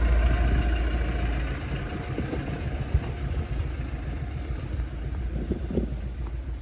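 A motor vehicle's engine running close by, loudest at first and fading after about a second and a half, leaving a lower rumble.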